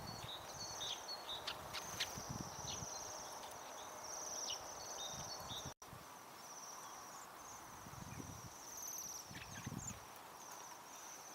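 Bohemian waxwings calling: many short, high, trilled calls overlapping, with a few scattered short high notes and some low soft thumps. The sound drops out for an instant about halfway.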